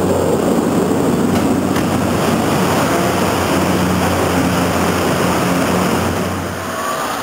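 Gondola lift station machinery running: a loud, steady low hum and rumble from the drive and the tyre conveyors that move the cabins through the station. It eases off slightly near the end.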